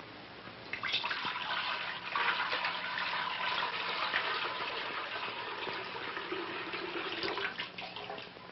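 Water running steadily from a tap, starting about a second in and stopping near the end.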